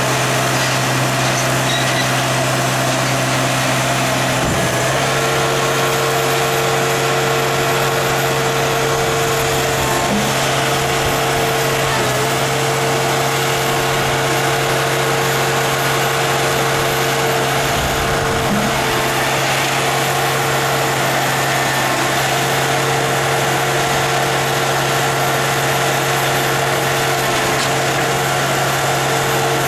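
Engine of a hydraulic scrap grapple machine running steadily under load as the grapple works sheet metal, with a higher steady tone joining about five seconds in and a few light knocks.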